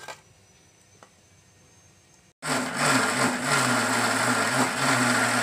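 A short knock at the very start, then, about two and a half seconds in, a Preethi Zodiac mixer grinder switches on and runs at a steady whir with a low hum. It is giving cooked black nightshade greens and moong dal one short pulse to grind them coarsely.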